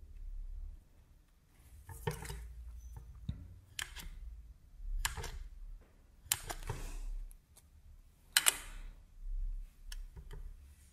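A thin plastic sheet and soft polymer-clay slices being handled by hand: about six short rustling, crinkling bursts.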